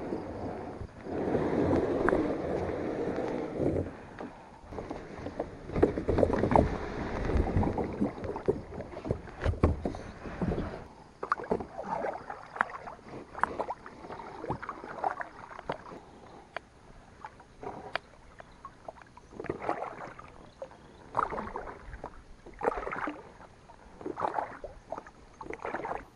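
Plastic sit-on-top kayak being paddled on a lake: the paddle blade dips and splashes irregularly about once a second, with water dripping off it. The first ten seconds or so are louder and denser, with rustling, knocking and splashing.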